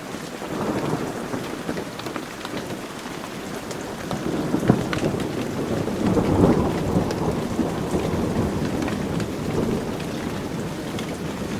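Heavy rain falling steadily, with scattered sharp drips and a rumble of thunder swelling through the middle.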